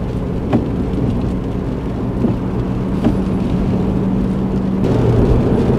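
Car engine and tyre noise heard from inside the cabin while driving up a slip road, a steady hum. Near the end the note changes and grows a little louder.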